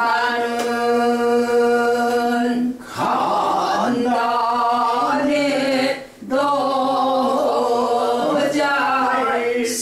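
Unaccompanied Korean traditional singing (sori), a long held opening note followed by phrases sung with a wavering, ornamented vibrato, pausing briefly twice.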